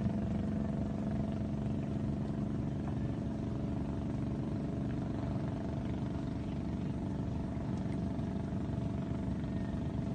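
A small boat engine running steadily at an even, unchanging speed, a continuous low hum.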